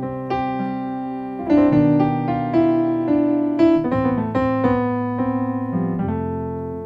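Electric piano playing gospel chords with added extensions: sustained chords in the middle register with a bass note, a new chord or melody note struck every half second or so.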